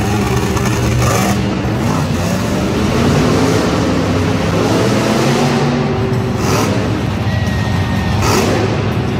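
Monster truck engine revving hard, its pitch rising and falling again and again.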